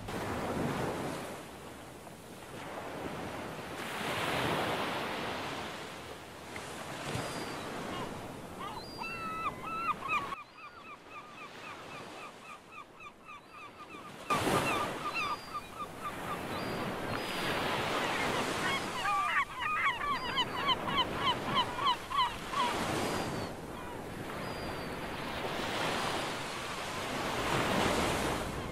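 Surf washing in slow swells every few seconds, with repeated wavering bird calls over it that come in a quick run a little past halfway. Around the middle it dips quieter for a few seconds.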